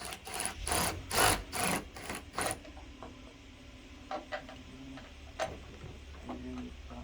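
Tailgate assist being forced by hand into a pickup's tailgate: about six quick, loud scraping and rattling strokes of metal and plastic in the first couple of seconds, then a few lighter clicks and knocks.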